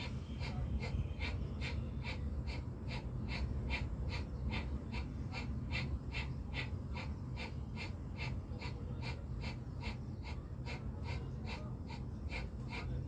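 Bhastrika pranayama (bellows breath): forceful, rapid breaths in and out through the nose in an even rhythm, about three short rushes of air a second.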